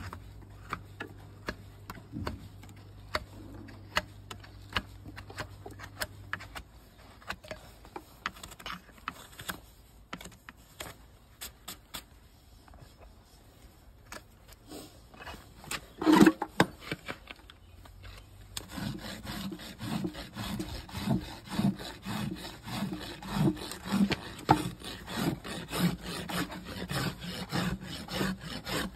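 Trimming a Shire horse's hoof: scattered short scraping ticks as the sole is worked, with one louder scrape about 16 seconds in. From about 19 seconds, a steel hoof rasp files across the hoof in even rubbing strokes, about two a second.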